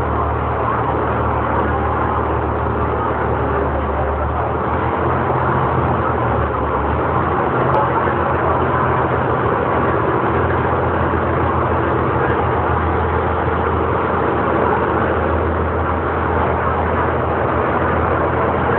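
Diesel engine of a river ferry running steadily under way, a low drone over a dense rush of engine and water noise; the engine note shifts a few seconds in.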